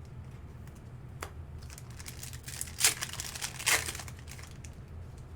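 Plastic crinkling from trading cards and their sleeves or pack wrapper being handled: a few short crinkles, the loudest about three and four seconds in, over a low steady hum.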